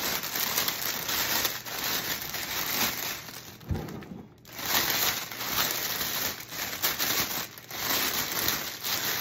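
Clear cellophane basket bag crinkling as it is gathered and bunched up by hand, with a brief lull a little before halfway.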